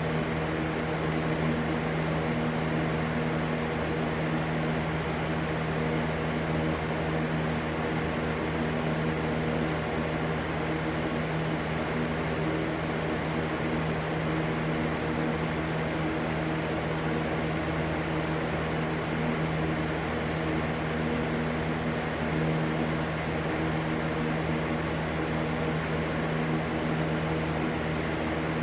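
Electric fan running steadily: an even rushing whoosh with a constant low motor hum underneath.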